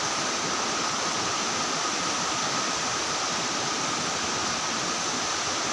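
Steady night-time forest ambience: an even hiss with two unbroken high insect tones running through it.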